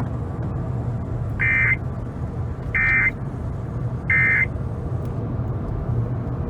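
Three short bursts of Emergency Alert System digital data tones, the End of Message code that closes an EAS alert, about a second and a half apart, heard over a radio with a steady low rumble beneath.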